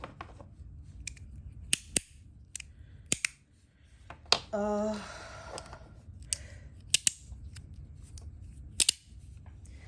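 Magnetic fidget slider snapping: sharp clicks as its strong magnets pull the pieces together, about eight spread irregularly, some in quick pairs.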